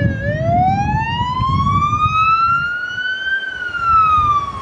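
Emergency vehicle siren on a slow wail: the pitch dips, then climbs steadily for about three seconds and starts to fall again, over a low rumble.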